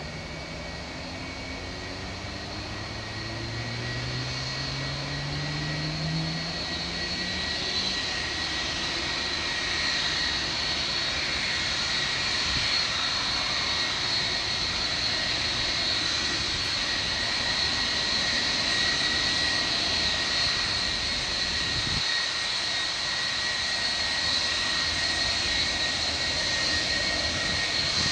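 Boeing 757-224's twin jet engines whining at taxi power as the airliner taxis closer, growing louder over the first ten seconds and then steady, with a high whine over a broad rush.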